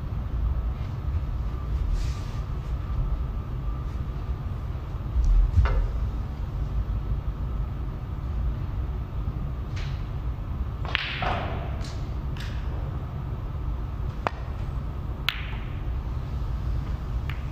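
A snooker break-off in a quiet arena with a steady low hum: the cue tip strikes the cue ball with a sharp click about three-quarters of the way in, and about a second later the cue ball clicks into the pack of reds. Before that, a few isolated soft knocks and a low thump.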